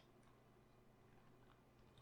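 Near silence: room tone with a low hum and a few faint ticks.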